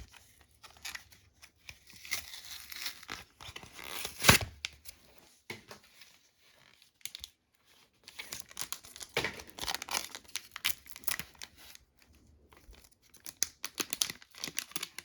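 Trading card booster pack wrapper being crinkled and torn open, with one loud sharp rip about four seconds in, then more crinkling of the wrapper and cards from about eight seconds on.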